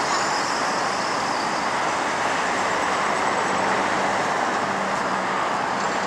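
Steady road traffic: cars and a minibus driving past, an even rush of tyres and engines.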